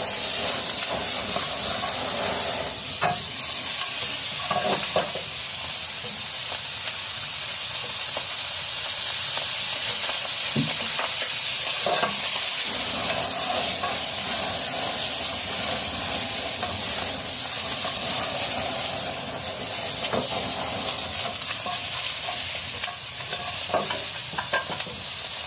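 Food sizzling and frying in a hot wok over a gas flame, a steady hiss, with a few sharp clicks of a utensil against the wok as it is stirred.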